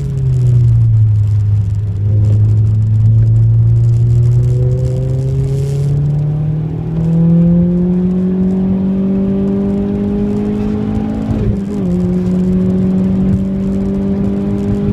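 Renault Clio 197's 2.0-litre four-cylinder engine heard from inside the cabin. Its pitch drops as the car slows for a corner, then rises steadily under acceleration. It dips briefly at a gear change about three-quarters of the way through and pulls on again, over steady road and tyre noise on a wet track.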